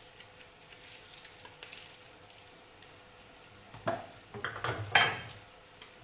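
Kitchen utensils and a dish being handled and stirred: a few sharp scrapes and clinks from about four seconds in, the loudest near five seconds, over a faint steady hiss.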